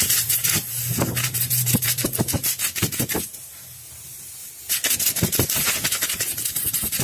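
Compressed-air blow gun hissing in short, rapid blasts through a pleated paper engine air filter, blowing the dust out of it. The blasts stop for about a second and a half midway, then start again.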